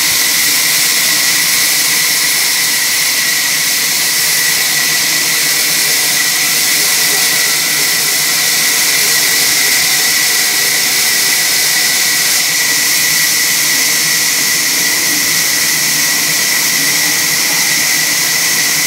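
Band sawmill running as its blade cuts through an East Indian rosewood log: a loud, even, high hiss with a steady whine that does not let up.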